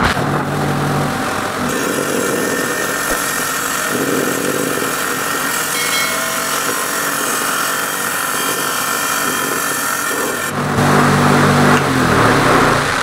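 Small bench-mounted stone saw running as its blade cuts through a hand-fed nodule of quartz and agate, a steady grinding whine that starts right at the beginning. It gets louder and lower near the end.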